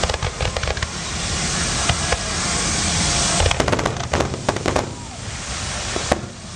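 Aerial fireworks shells bursting overhead: many sharp bangs and crackles, thickest from about halfway through and again near the end.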